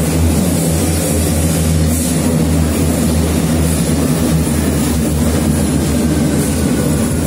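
Berlin U-Bahn H-series train running into the station alongside the platform: a loud, steady rumble of wheels and running gear, with a faint falling whine near the end.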